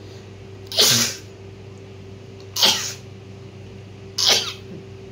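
A woman sneezing three times, each a short, loud, sudden burst, about a second and a half apart.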